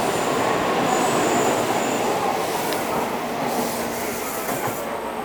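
Tokaido Shinkansen train running past the platform, a steady rumble and rush of wheels on rail that slowly fades.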